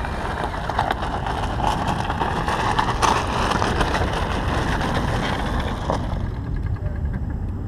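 Radio-controlled scale model Astra HD7 truck driving over gravel: a wavering motor whine, crackling from the tyres on the stones, and a steady low rumble. The higher crackle thins out after about six seconds.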